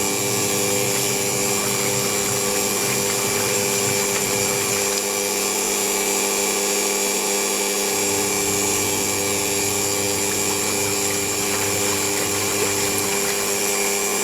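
Semi-automatic top-loading washing machine's wash motor running at the end of its wash cycle, a steady motor hum with a constant whine over the churning tub.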